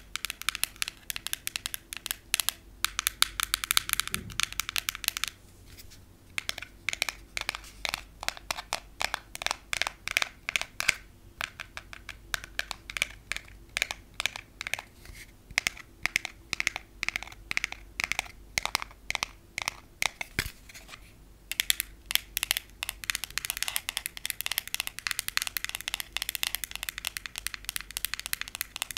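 Fingernails tapping fast on a long frosted translucent rod: long acrylic nails and natural nails in turn, in dense runs of rapid sharp clicks broken by a few short pauses.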